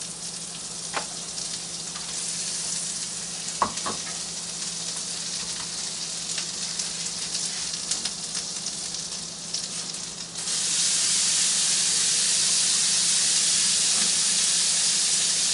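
Herb butter sizzling on a hot flat-top griddle, with a few sharp clicks of a utensil in the first seconds. About ten seconds in the sizzle jumps suddenly louder and brighter and stays there.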